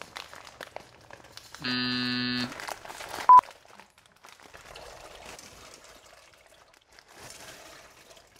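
An electronic buzzing tone lasting about a second, then a short, sharp, high beep, both flat and cut off abruptly like added sound effects. Under them, the plastic bag of dry macaroni crinkles and rustles as the pasta is poured into a pot.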